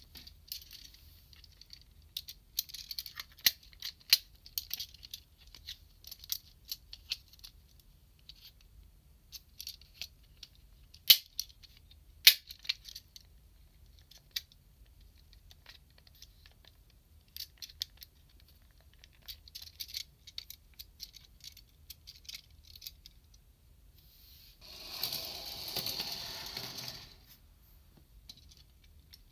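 Hard plastic toy parts clicking, tapping and rattling as they are handled, folded and snapped together, with two sharp, louder snaps a little over a second apart midway. Near the end comes a rough scraping rustle lasting about two seconds.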